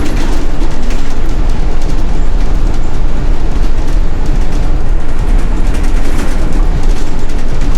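Inside a moving city bus: steady, loud engine and road rumble with light rattling from the cabin.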